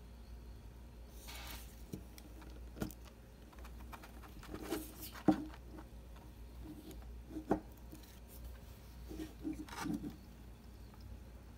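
Scattered light taps, clicks and knocks of objects being handled, with a brief rustle about a second in and the sharpest knock about five seconds in.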